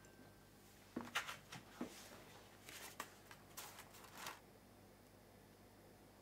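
A series of faint, soft clicks and rustles, as of small objects being handled, which stop about four seconds in; otherwise quiet room tone.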